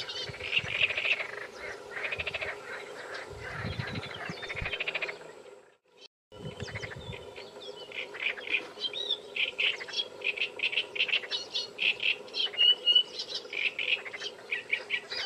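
Small birds chirping and singing continuously in quick repeated notes, with a short break in the sound about six seconds in.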